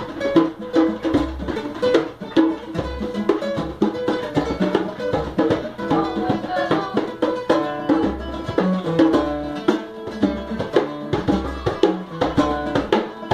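A hand drum played with bare hands in a steady rhythmic groove, with low thumps and sharp slaps, under a bandola plucking short melodic notes.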